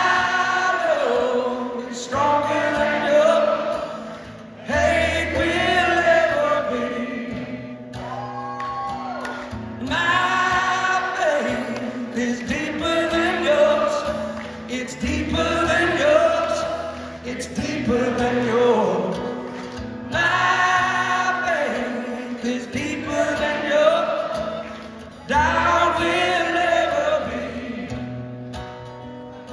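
A male rock singer sings a slow song live in sung phrases of a few seconds each, accompanied by his own acoustic guitar.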